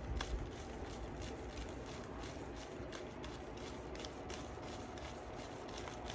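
Faint light clicks and rustles, scattered a few a second, as small beads are scooped up and strung onto beading thread.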